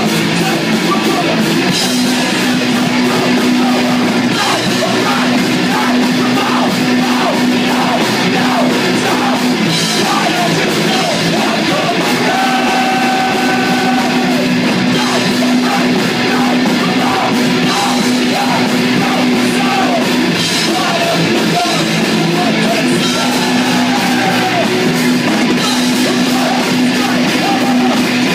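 Live rock band playing loud: distorted electric guitars, electric bass and a drum kit, with shouted vocals.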